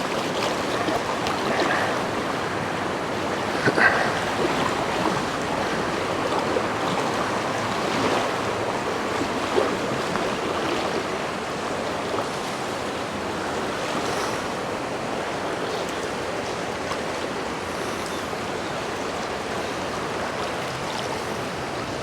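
Shallow, fast river water rushing steadily over stones, with a couple of brief faint knocks or splashes.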